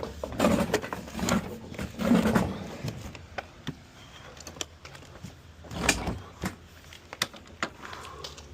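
Knocks, scrapes and clatter of a heavy refrigerator and junk being handled, with a few low grunts early on and a louder thump about six seconds in.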